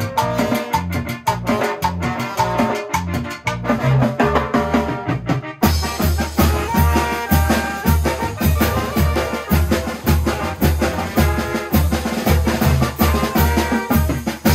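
A small brass band playing live: saxophone and trombones over bass drum, cymbal and electric bass, with a steady dance beat. About five and a half seconds in, the sound turns fuller, with a strong bass pulse about twice a second.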